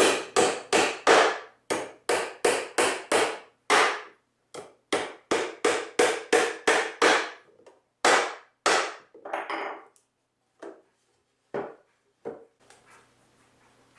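A hammer driving nails through a white pine toolbox end into the side. It strikes in a quick, even run of about three blows a second for some nine seconds, then gives a few lighter, spaced taps.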